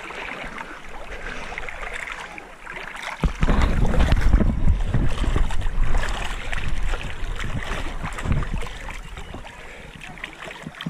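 Lake water lapping and splashing around an action camera held at the surface by a swimmer. From about three seconds in, a much louder low rumbling buffeting comes in as the camera is handled in the water, easing off near the end.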